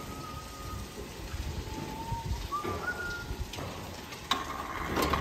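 A series of faint, thin whistled notes, each about half a second long and slightly rising, over low barn background noise. Near the end a louder rattling, clattering noise starts up.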